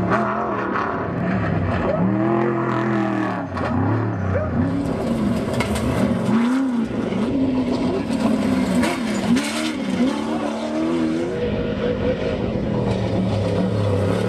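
Off-road race buggies and trophy trucks passing at speed, their engines revving hard, with the pitch rising and falling repeatedly with throttle and gear changes. A rushing hiss joins in through the middle.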